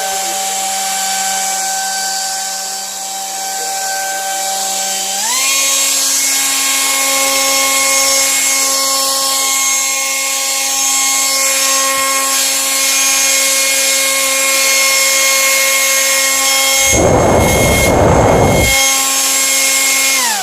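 A 2300 kV racing-drone brushless motor driving a converted handheld fan gives a steady high whine. About five seconds in it steps up to a higher speed and holds there. A loud rushing burst comes about seventeen seconds in and lasts under two seconds.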